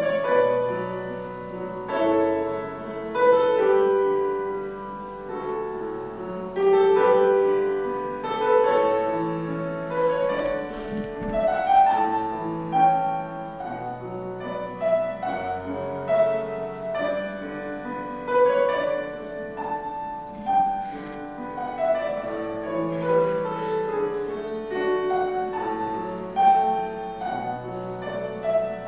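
Slow classical-style instrumental music led by piano, with held bass notes under a flowing melody.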